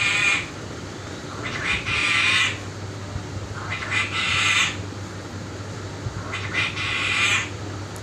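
Pet parrot giving four harsh squawking calls, each about a second long and roughly two seconds apart.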